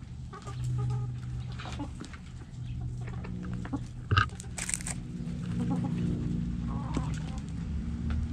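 Backyard chickens clucking softly as they scratch and peck in the dirt, with small scratching clicks and a low steady hum underneath. A sharp knock about four seconds in is the loudest sound, followed by a brief rustle.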